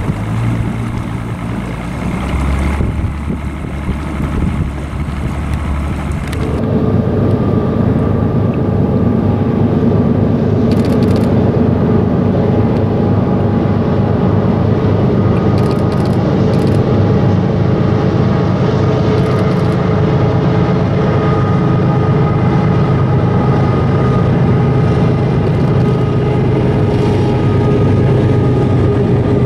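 A boat's motor running steadily under way, with wind and water rush. It comes in suddenly about six seconds in after a quieter stretch of low hum.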